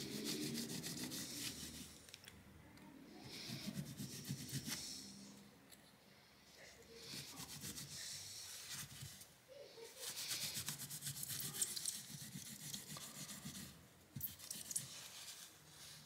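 Paper towel rubbing and scrubbing old thermal paste off the GPU die and surrounding circuit board of a Galax RTX 2060 Super graphics card, in repeated spells of rubbing with short pauses between.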